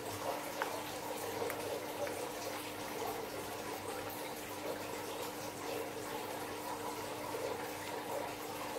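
Wet slime with blue beads mixed in being squeezed and stretched by hand, giving a continuous sticky squelching with many small crackling pops. A faint steady hum runs underneath.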